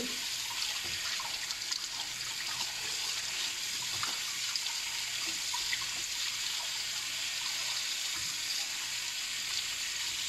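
Kitchen tap running steadily onto a raw whole chicken as it is rinsed and rubbed by hand under the stream.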